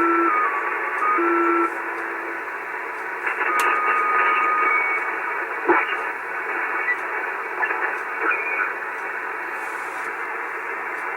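Icom 730 shortwave receiver on 75-metre lower sideband being tuned across the band. Static hiss carries heterodyne whistles that step in pitch as the frequency changes, until they drop away about a second and a half in. A short steady whistle follows, then a click partway through, over the hiss.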